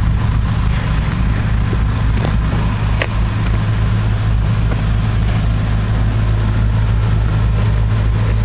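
Heavy equipment engine idling steadily, a low, even hum, with a few faint clicks.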